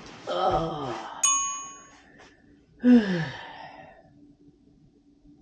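A man groaning and then letting out a long sigh that falls in pitch, the sighs of someone who has eaten too much. A bright ding rings about a second in, and a faint steady hum runs underneath.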